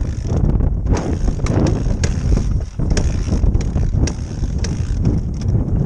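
Wind and handling rumble on the camera's microphone, with regular knocks about twice a second, as a Honda CRF100F dirt bike is moved along pavement with its engine dead after running out of gas.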